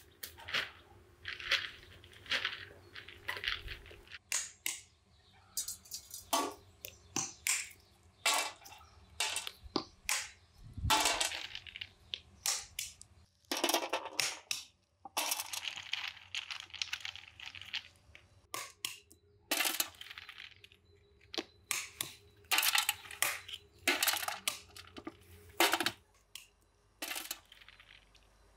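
Walnuts being cracked open with a stone on a wooden block: a long run of irregular sharp cracks and knocks, with nuts and shell pieces clattering onto a metal tray.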